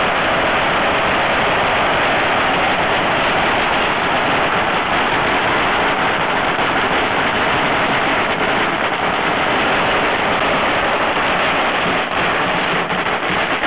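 A long string of firecrackers going off in a loud, dense, unbroken crackle. It starts to break into separate pops near the end.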